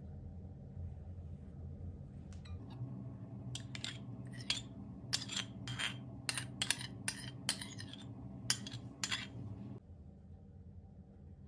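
Metal spoon clinking and scraping against ceramic bowls while scooping out mayonnaise: about a dozen sharp clinks, most bunched in the middle few seconds.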